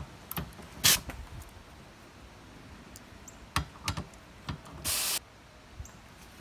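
A ratchet with a 14 mm socket working the nuts off windshield wiper arms. There are scattered metal clicks and knocks, the sharpest about a second in, and a short noisy burst lasting about a third of a second about five seconds in as the tool spins the nut.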